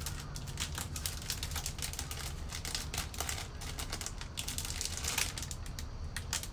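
Clear plastic bag crinkling and crackling as hands pull it open, a dense run of irregular crackles.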